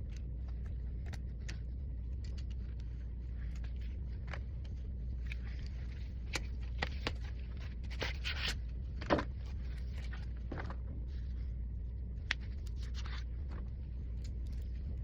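Scattered small clicks, taps and brief scrapes of hand tools and parts being handled on a repair bench, the sharpest click about nine seconds in, over a steady low hum.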